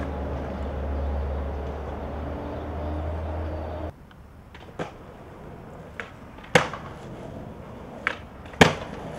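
A steady low rumble that cuts off about four seconds in, then skateboard tricks on concrete: the deck popping and wheels and board landing in about five sharp clacks, the loudest near the middle and shortly before the end.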